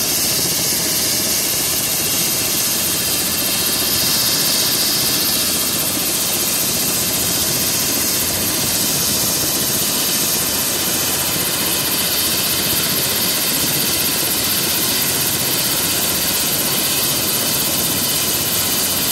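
Bell 429 helicopter's twin turboshaft engines and main rotor running steadily while parked on the ground: a constant high-pitched turbine whine over a broad rush of noise.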